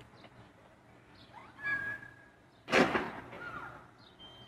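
Faint bird chirps, then nearly three seconds in a single sudden loud impact that dies away over about half a second: a police van rolling away with its handbrake off and striking a parked car.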